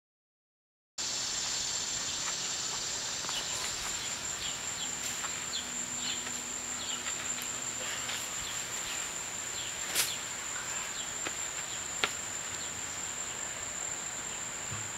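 Steady, high-pitched drone of insects in a summer backyard, starting about a second in after silence. Two sharp clicks come about two seconds apart in the second half.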